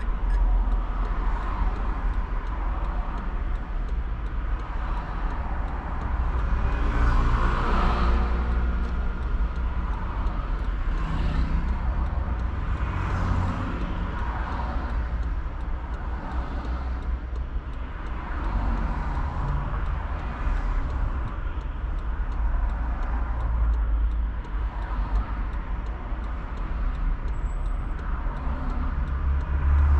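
Road traffic from a car waiting at an intersection: a steady low rumble, with vehicles passing by in swells, the loudest about seven to eight seconds in.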